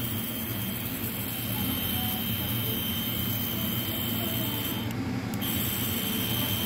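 Small DC motor of a bottled-water electric pump running steadily with its pump head removed, a constant hum with a thin high whine over it. A brief hiss about five seconds in.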